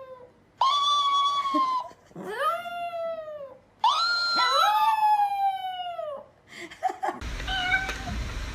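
A pet animal crying out in three long, drawn-out yowls, each sliding down in pitch. About seven seconds in, the sound changes to a steady background noise with fainter sounds over it.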